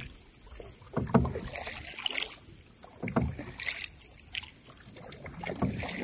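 Canoe paddles dipping and pulling through calm water, a stroke every second or two, each with a short splash and swirl.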